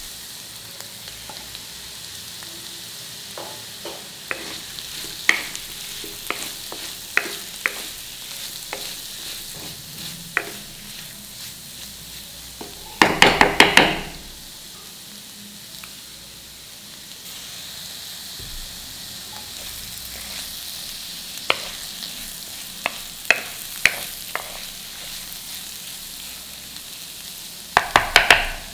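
Chayote stir-fry sizzling steadily in a kadai, with a spatula scraping and clicking against the pan. Two bursts of quick stirring strokes, about halfway through and again near the end, are the loudest sounds.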